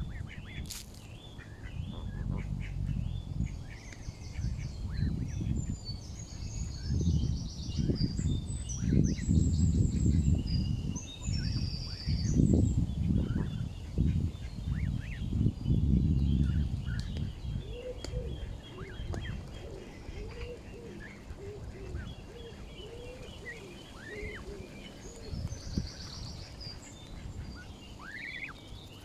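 Birds chirping and trilling, with short calls from the feeding Canada geese and goslings close by. Loud low buffeting on the microphone comes and goes through the first half.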